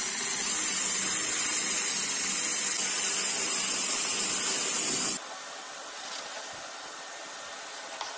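Cordless drill running steadily, boring a 38 mm Forstner bit through plywood. About five seconds in the sound cuts abruptly to a quieter steady hiss of a shop vacuum sucking up the wood chips.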